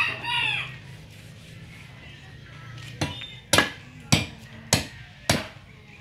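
A rooster's crow trails off in the first second. From about three seconds in come five sharp machete chops into a young coconut's husk on a wooden stump, roughly one every half second or so.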